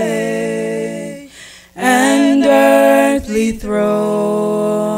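Mixed vocal quartet of women and a man singing a hymn a cappella in long held notes, with two short breaks between phrases.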